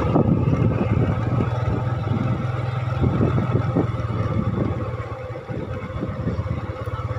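Small motorcycle engine running at low speed as the bike rolls slowly along a narrow path, its note easing off for a few seconds in the middle and picking up again near the end.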